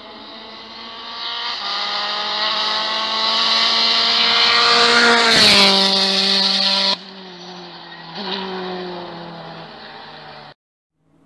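Rally car at full throttle on a tarmac stage, its engine note rising as it comes on and loudest around the middle, where the pitch falls as it goes by. It is then heard further off, revving up again about eight seconds in, before the sound cuts off near the end.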